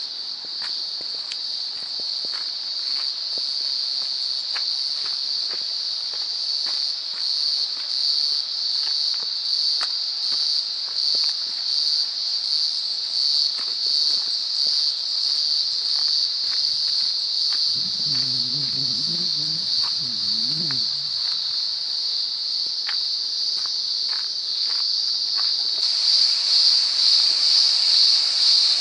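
A dense insect chorus: a steady high buzzing that pulses slightly and grows louder near the end. Short clicks sound now and then through it.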